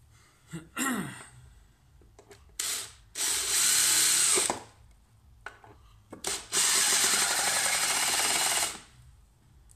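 Cordless drill driver driving wood screws into chipboard. A couple of short blips of the motor come first, then two steady runs of about a second and a half and about two seconds as the screws are driven in.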